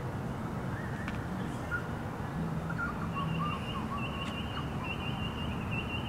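Dawn bird song from currawongs and noisy miners. A warbling, varied song comes first; from about halfway through, a series of short, high, thin notes repeats, over a faint low background hum.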